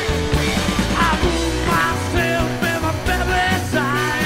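Rock music with a singing voice and a steady bass line.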